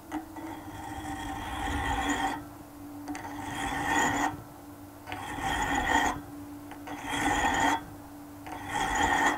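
A hand file rasping against a rusty steel bolt spinning in a wood lathe, in five strokes: the first about two seconds long, the rest about a second each. The lathe hums steadily underneath. The file is cutting a shoulder into the bolt's shaft.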